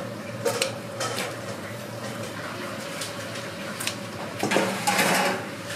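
Kitchen clatter of dishes and utensils: scattered clinks and knocks, with a denser burst of clattering about four and a half seconds in, over a steady low hum.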